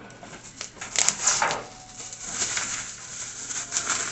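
Small clicks, scrapes and rattles of hands and snips working the twist ties under a gas grill's firebox, with a louder rattle about a second in.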